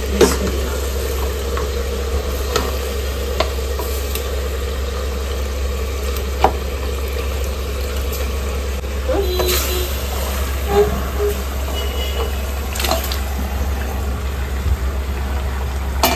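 Marinated mutton pieces sizzling as they are added to hot oil in an aluminium pressure cooker, with a spoon scraping them from a metal bowl and several sharp clinks of metal on metal.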